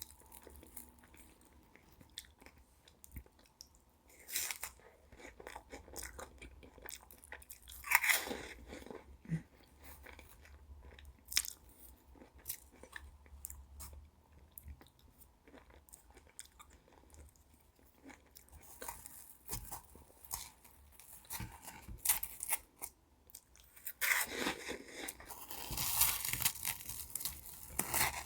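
Close-miked eating sounds: a person biting and chewing Pavlova, the meringue crunching and crackling between wetter chewing. Louder bursts of crunching come about 8 seconds in and again over the last few seconds.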